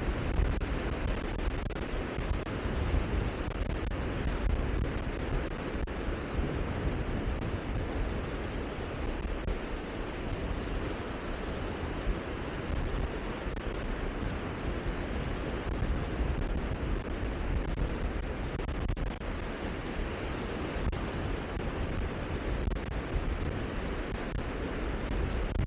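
Steady rushing wind buffeting the microphone, with a fluctuating low rumble and no separate events.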